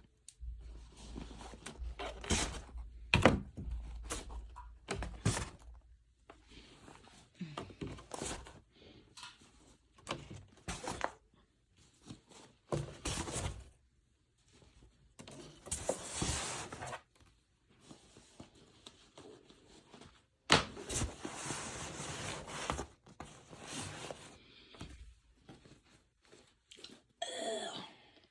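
Filled paper gift bags being handled and set down into a box: irregular thunks and knocks with stretches of paper rustling, the loudest knock about three seconds in. A brief wavering pitched sound comes near the end.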